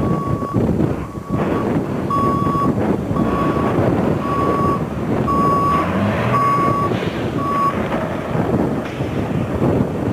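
Box truck's backup alarm beeping at a steady pace of roughly one and a half beeps a second over the low rumble of the truck's engine; the beeps stop about three-quarters of the way through.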